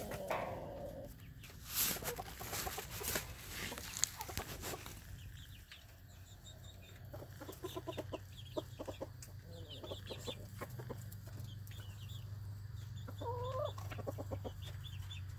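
Chickens clucking in short, repeated notes, with a couple of longer drawn-out calls near the end.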